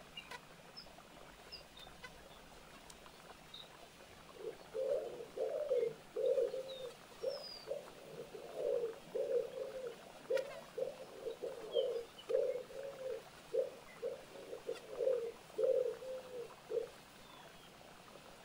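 A pigeon cooing in a long run of repeated low coos, starting about four seconds in and stopping shortly before the end. Faint high chirps of small songbirds come and go throughout.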